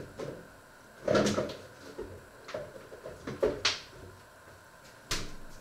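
Knocks and clatters of kitchen cabinet handling: a bump about a second in, a few more from about two and a half to nearly four seconds, and a sharp knock about five seconds in.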